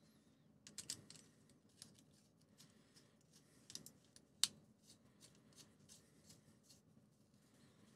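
Faint clicks and taps of a Logic Pro vape pen being handled as its capsule cartridge is pushed onto the battery, with one sharper click about four and a half seconds in. This is followed by a run of about six evenly spaced light clicks, roughly three a second.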